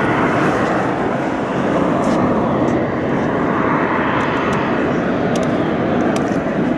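Jet airliner engines running, a loud steady rushing noise.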